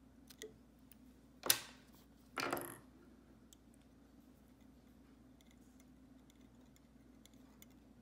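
Small fly-tying scissors snipping off the antron yarn with one sharp snip about a second and a half in, followed a second later by a short clatter.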